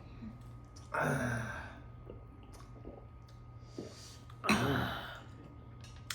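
Two breathy sighs from a person, one about a second in and one about four and a half seconds in, over a steady low hum.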